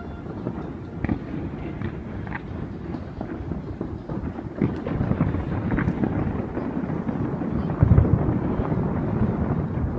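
Fireworks display: many booming bursts overlapping into a continuous low rumble, growing louder, with the heaviest boom about eight seconds in.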